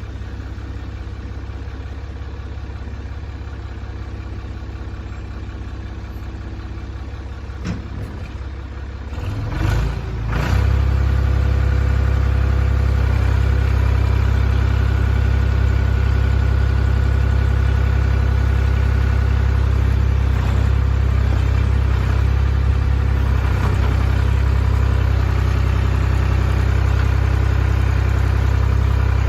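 Ford 555B backhoe's four-cylinder diesel engine idling, then revved up about ten seconds in. It holds there at a steady, louder, higher speed.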